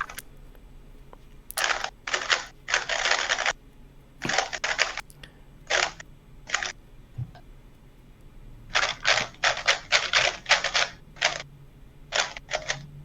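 Rubik's-type speedcube being turned rapidly, a clicking clatter that comes in short bursts of turns with pauses between. The longest unbroken run of turning is about nine to eleven seconds in.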